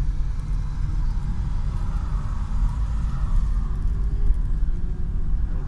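Steady low road and engine rumble heard inside a moving car's cabin, with an oncoming car passing about two to three seconds in.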